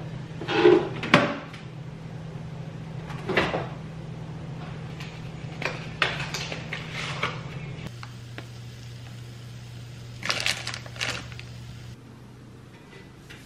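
Kitchen handling sounds from cooking prep: a refrigerator door opened, a cardboard pancake-mix box torn open, and clatter at the stove, heard as scattered knocks and rustles over a low hum.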